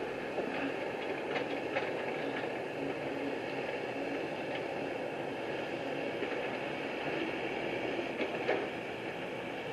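Steady engine noise with a few faint knocks.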